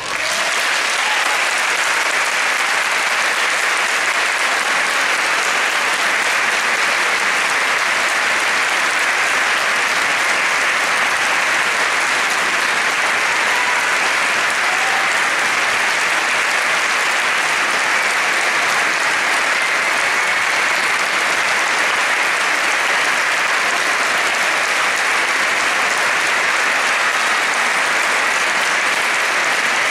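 Concert-hall audience applauding steadily at the end of an orchestral performance.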